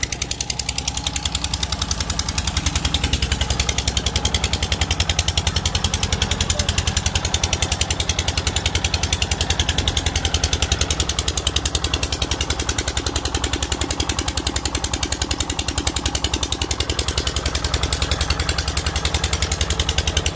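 Tractor engine running steadily under load, driving a water pump that feeds a rain-gun sprinkler: an even, rapid chugging that holds at one speed.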